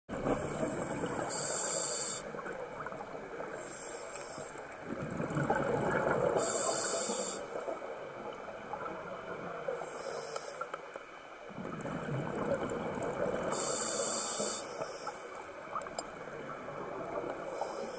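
Scuba regulator breathing underwater: short hissing inhalations every few seconds and two longer rushes of exhaled bubbles.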